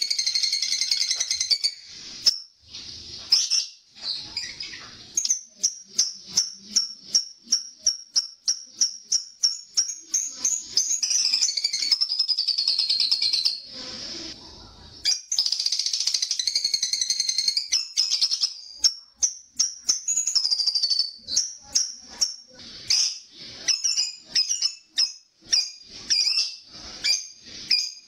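Lovebird chattering: long, rapid, high-pitched trills of two to three seconds each, the extended chatter that fanciers call ngekek, with runs of short sharp chirps between them.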